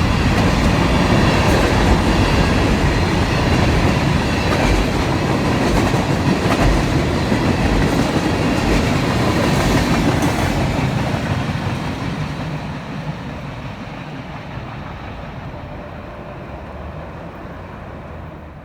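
Freight train cars rolling past with a steady, loud rail rumble, which fades and dulls over the last several seconds as the train draws away.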